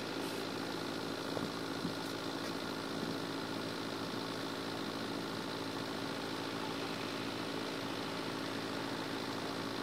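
Car engine idling steadily close by, over a light hiss of background traffic.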